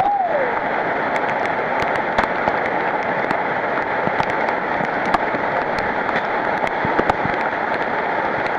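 Heavy tropical rain pouring onto rainforest foliage: a steady, even hiss with scattered sharp taps of drops.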